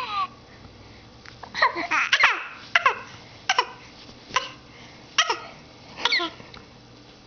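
Baby's short, high squeals and laughing coos, one every second or so with quiet between.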